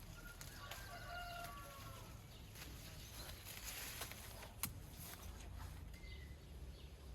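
A chicken clucking briefly about a second in, then a single sharp click about halfway through, over a faint low rumble.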